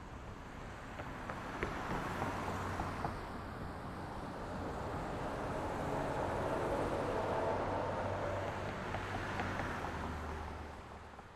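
Street traffic: vehicles passing with tyre and engine noise over a low engine hum, swelling twice as they go by, then fading out near the end.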